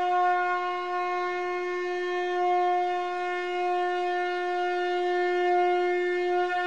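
Conch shell (shankh) blown in one long, steady note that breaks just at the end.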